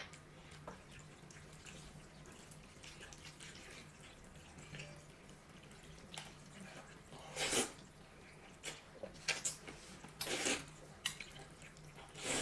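A man slurping wide noodles in broth from a bowl: three loud, short slurps in the second half, with small clicks in between.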